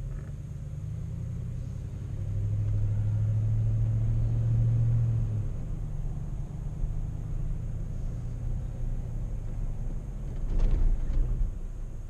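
A car driving on a road: a steady low engine and road rumble that grows louder a couple of seconds in and eases off again, with a short louder rush of noise about ten and a half seconds in.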